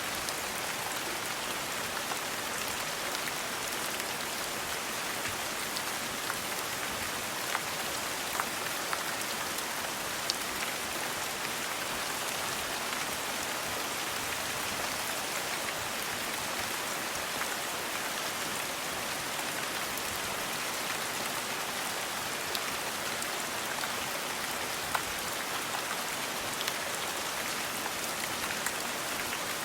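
Steady rain falling, an even hiss with the odd louder drop ticking now and then.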